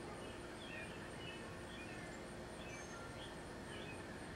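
Small birds chirping in short, scattered calls over steady background noise, with a faint, high, rhythmic pulsing throughout.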